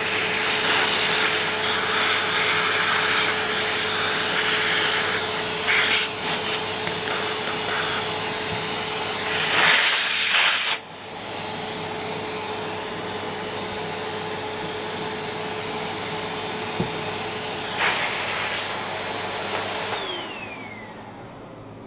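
Ariete Handyforce vacuum cleaner running with a steady motor whine, loud and rough with rubbing and scraping noise for about the first half. It then drops suddenly to a quieter, even run, and near the end it is switched off and the whine falls in pitch as the motor spins down.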